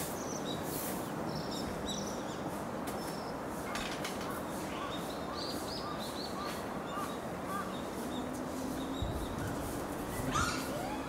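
Outdoor background noise with scattered short, high animal calls throughout, and a louder burst of calls near the end.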